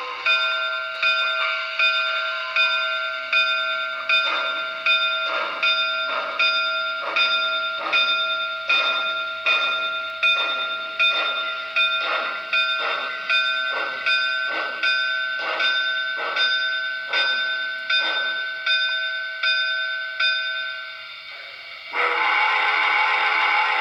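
Steam exhaust chuffs from the DCC sound system of an HO-scale Broadway Limited Imports New York Central 4-8-4 Niagara locomotive, beating slowly and evenly at about three chuffs every two seconds over a steady whine. Near the end the chuffing stops and a loud hiss of steam comes in.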